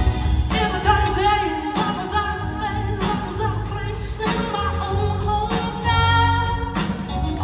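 Live soul band playing, with drums, bass, keys and guitar under a lead vocal, heard from far back in a large hall.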